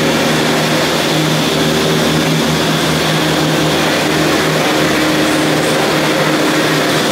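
Heavy rain falling steadily, with a steady low machine hum underneath.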